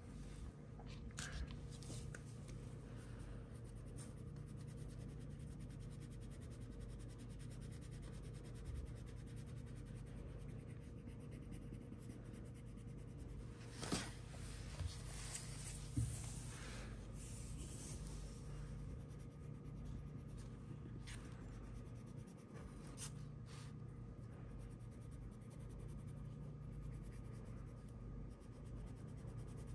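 Wax crayon rubbing back and forth on paper while colouring in, with a few light clicks and taps scattered through it.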